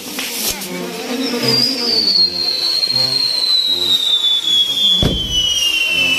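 Whistling firework on a burning pyrotechnic castillo: one long whistle begins about a second in and slowly falls in pitch, and a single loud bang comes about five seconds in.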